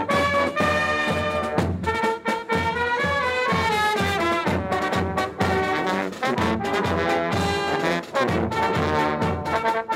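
Brass band playing, with held brass notes moving in a melody over regular drum beats.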